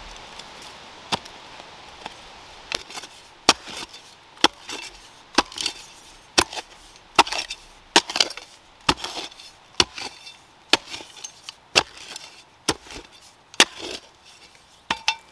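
A hand digging tool chopping into the ground over and over, roughly one stroke a second, with gritty scraping of dirt between strokes, as a Dakota fire pit hole is dug out.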